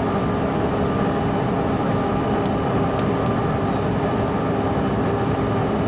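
Cabin noise inside a jet airliner in flight: the engines and rushing air make a steady noise with a few constant hum tones.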